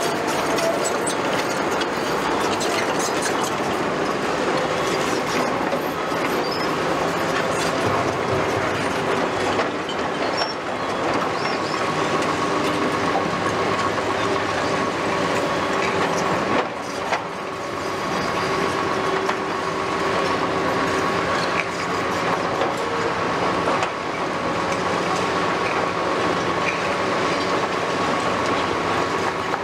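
Caterpillar 320F crawler excavator driving on steel tracks, the track links clanking and squealing over its running diesel and hydraulics, with a steady high whine through much of it.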